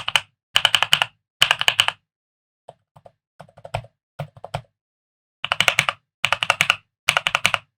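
Mechanical keyboard keys on a Vortexseries VX6 typed in quick runs of several strokes, clacking in bursts with short pauses; in the middle a stretch of softer, sparser keystrokes.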